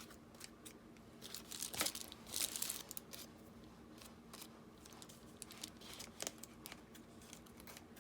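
Scissors cutting through a paper-covered bubble mailer, with crinkling and rustling as the mailer is handled. The crinkling is densest between about one and three seconds in, followed by scattered small snips and clicks.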